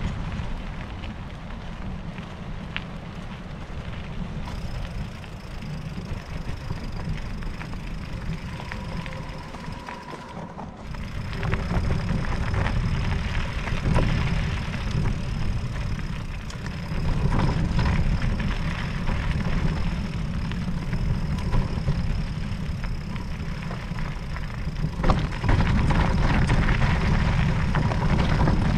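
Wind buffeting the microphone during an electric mountain bike ride, with crackling and rattling from the tyres on a rough trail. It gets louder about a third of the way in and again near the end.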